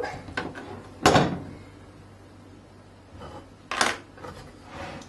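A few knocks and bumps of handling: a loud knock about a second in, another nearly three seconds later and a fainter one near the end, with small clicks between.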